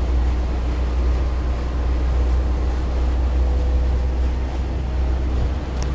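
Passenger river boat underway: its engine running with a steady low drone, over the rush of water and wind.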